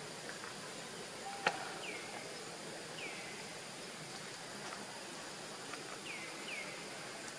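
Outdoor ambience: a steady background hiss with short falling chirps repeated a few times, and one sharp click about a second and a half in.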